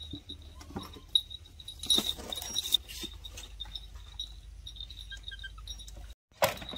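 Light scuffling and scattered taps with small metallic clinks as two baby macaques wrestle on a concrete floor.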